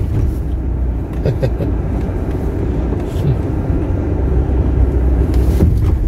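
Car driving along a road: a steady low rumble of engine and tyre noise heard from inside the cabin.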